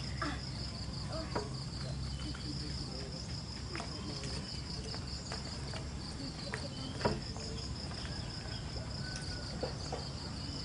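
Insects chirring steadily in a high, pulsing trill, with a couple of short knocks, one about a second and a half in and a louder one about seven seconds in.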